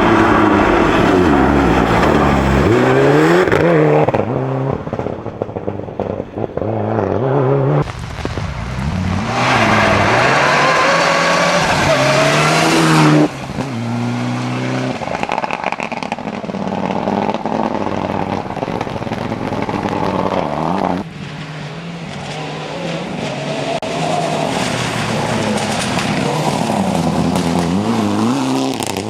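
Rally cars driven at race pace, their engines revving high and dropping back through gear changes and lifts, with some tyre squeal. The sound switches abruptly from one car to another several times.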